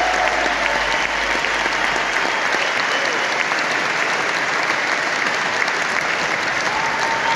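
Theatre audience applauding steadily, a dense wash of clapping. In the first two seconds the band's last low note fades out under it, and a few shouts rise above the clapping near the end.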